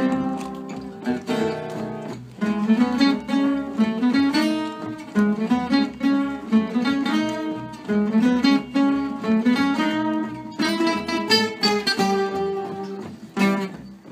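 An ensemble of Selmer-Maccaferri-style acoustic guitars playing gypsy-jazz music together, a picked melody over strummed chords. The phrases break briefly about two seconds in and again near the end.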